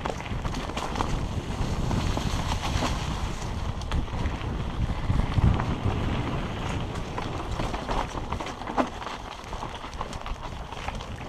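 Mountain bike descending rocky singletrack, heard from a helmet camera: wind rumbling on the microphone, tyres crunching over rocks and dry leaves, and the bike rattling and knocking over the bumps, with a few sharper knocks.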